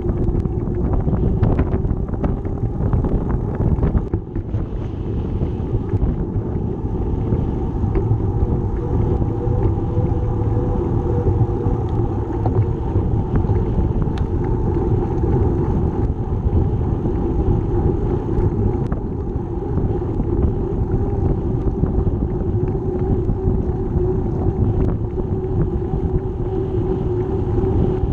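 Wind buffeting the microphone of a bicycle-mounted camera while riding, together with bicycle tyres running on a concrete path, as a steady rumble with a constant hum.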